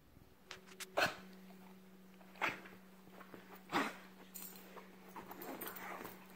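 A beagle scrambling and rolling on a fabric couch, giving three short, sharp sounds about a second, two and a half seconds and four seconds in, followed by scuffling and rustling against the cushions.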